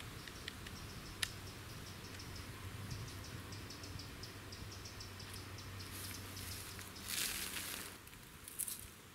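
A single sharp crack about a second in: a shot from a moderated Daystate Delta Wolf PCP air rifle. Faint high ticking sounds in the background, and dry leaves rustle near the end.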